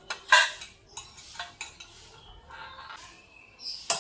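Light-gauge steel channel and hand tools clinking and knocking against a steel plate on a wooden block: one sharp metallic knock about a third of a second in, a few lighter clicks and faint clinks after it, and another knock near the end.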